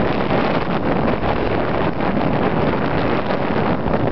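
Wind rushing over the microphone at the bow of a sailboat under sail, a steady, loud buffeting with the hull moving through choppy water.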